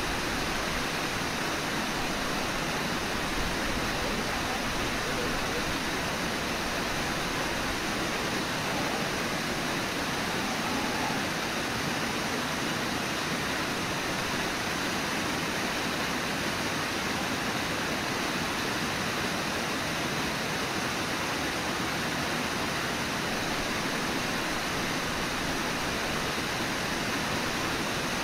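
Steady, unbroken rush of whitewater: Brooks Falls pouring over its ledge and churning through the rapids below.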